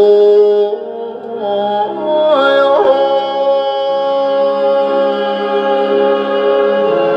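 A vinyl record playing on a Columbia stereo record player through its speakers: music whose melody glides between pitches, then holds one long note from about three seconds in.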